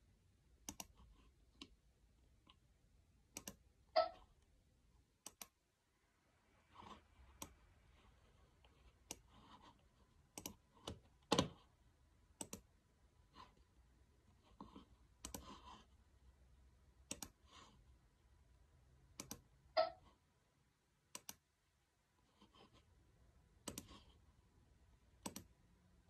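Faint, irregular clicking from a computer mouse and laptop keys during CAD work, a few clicks every couple of seconds, with three louder clicks along the way.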